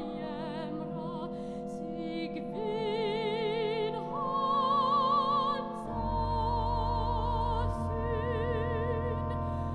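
Soprano singing held notes with vibrato over sustained organ chords, from the 1981 Wolff & Associés organ. A deep bass note enters about six seconds in and holds until near the end.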